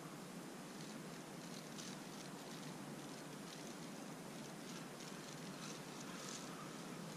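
Steady outdoor background noise, an even low hiss and hum, with a few faint short rustles.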